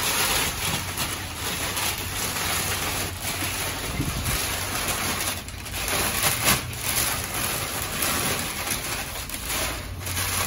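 Crumpled packing paper rustling and crinkling as it is pulled from a cardboard box, in uneven swells with a few sharper crackles, over a steady low hum.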